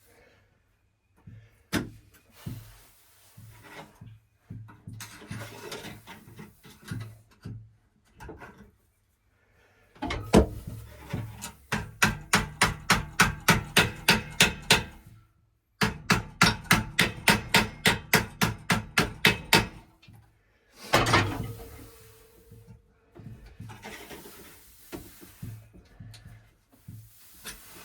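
Hand sawing: two long runs of quick back-and-forth saw strokes, about four a second, with a short pause between them as the cut goes through. Scattered scraping and knocks before and after.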